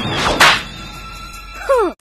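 A sharp punch-impact sound effect about half a second in, over background music, then a short yell falling in pitch near the end.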